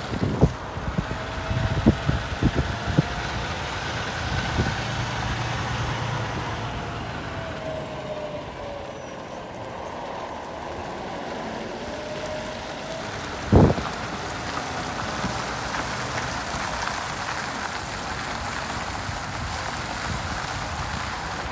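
Loaded semi trucks hauling heavy excavator parts pulling away: diesel engine running and tyres rolling, with a slowly falling then rising engine pitch. Several knocks come in the first three seconds, and one loud sharp thump about thirteen and a half seconds in.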